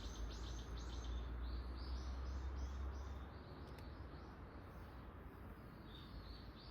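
A small bird singing series of short, high repeated notes, about three to four a second, a second series a little lower in pitch and a few more notes near the end. A low steady rumble sits under the first half.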